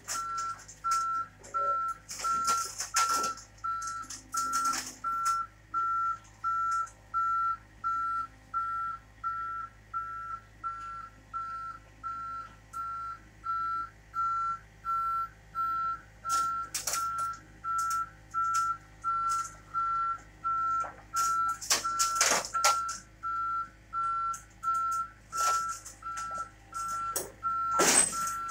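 Backup alarm beeping steadily at about one and a half beeps a second, over the low hum of a diesel engine as a mini excavator is unloaded, with a few sharp knocks in between.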